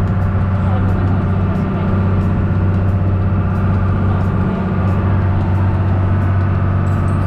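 Tour boat's engine running steadily, a constant low drone.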